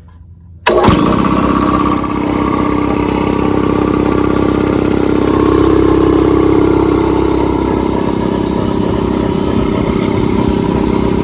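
Portable piston air compressor switched on under a second in, its motor and pump starting abruptly and then running steadily.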